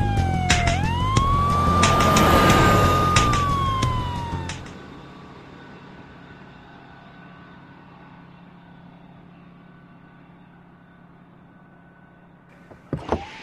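A wailing siren: its pitch falls, swings back up and holds, then slides down again, over music with a low pulsing beat. Both fade out about four and a half seconds in, leaving a faint hum, and two sharp hits come near the end.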